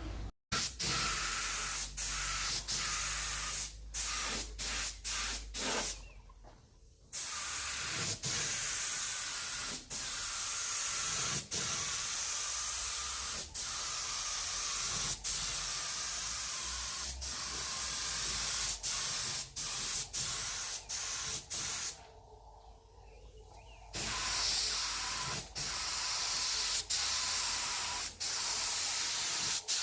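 Paint being sprayed onto car bodywork: a steady hiss of spray with many brief stops, and two longer pauses about six and twenty-two seconds in.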